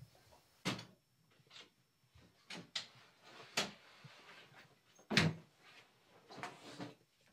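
Household handling sounds: a series of sharp knocks and clicks from doors and cupboards being opened and shut, about eight in all, the loudest a little past the middle. Soft rustling from a backpack and clothes comes between the knocks.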